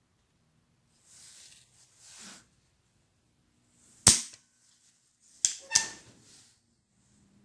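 Handling of tools and parts while working on a microwave's control board: two brief soft rustles, then a sharp loud snap about four seconds in and two more sharp snaps in quick succession about a second and a half later.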